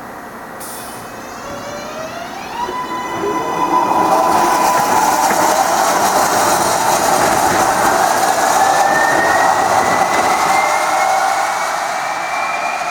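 New York City subway L train (R143/R160A-type cars) accelerating out of the station. Its AC traction motors give a rising multi-tone whine that levels off while a higher tone keeps climbing. The rumble of the passing cars swells loud and then begins to fade near the end.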